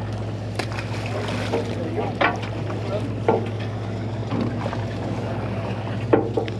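Party boat's motor running with a steady low drone, with a few short knocks and faint voices over it.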